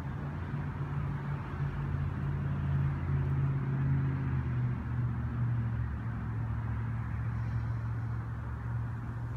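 A low engine hum runs steadily, growing somewhat louder toward the middle and easing off slightly afterwards.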